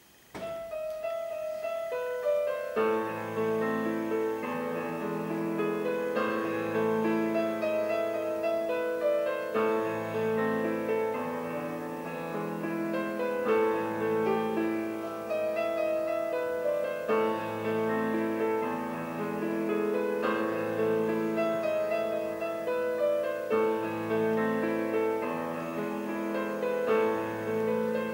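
Grand piano played solo: the piece opens with a single melodic line, and about three seconds in low bass notes and chords join beneath it, going on in repeating phrases.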